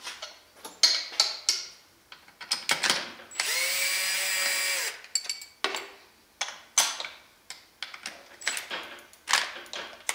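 Cordless drill-driver running once for about a second and a half, backing screws out of a metal chassis plate. Short clicks and knocks of the tool and parts being handled come before and after the run.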